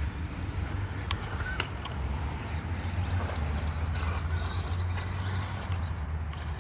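FMS Smasher V2 RC monster truck driving in stop-start spurts, its electric drive and tyres coming and going in short bursts over a steady low rumble. The truck keeps cutting out, which the driver suspects is down to its high-speed battery.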